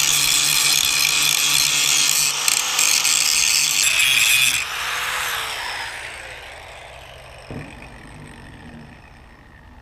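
Handheld electric angle grinder grinding on a steel bracket. Near the middle it is switched off and winds down with a fading, falling whine. A single dull knock comes near the end.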